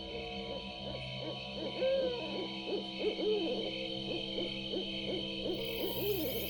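An owl hooting: a quick run of short, rising-and-falling hoots, about two or three a second, over a steady droning background.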